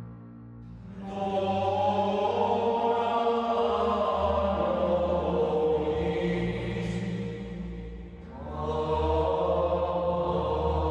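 Background music: a choir singing slow, sustained chant-like phrases, fading briefly about half a second in and again near eight seconds before swelling back in.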